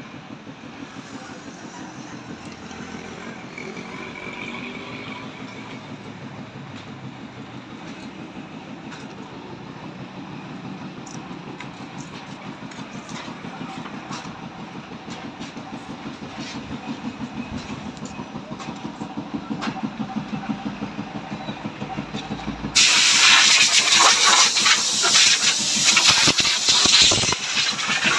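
Diesel coach engine idling with a steady fast throb, slowly getting louder, heard at an open rear engine bay of a Yutong bus. About three quarters of the way in it suddenly gives way to a much louder, harsher engine sound with hissing.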